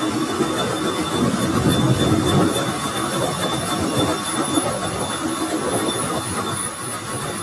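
Metal lathe taking a facing cut across a spinning steel disc: the turning tool scraping the metal with a steady cutting noise and a thin, high, constant squeal over the machine's rumble.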